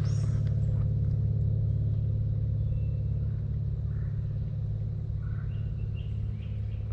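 A steady low mechanical drone, like a distant motor, easing off a little toward the end, with a brief bird chirp at the start.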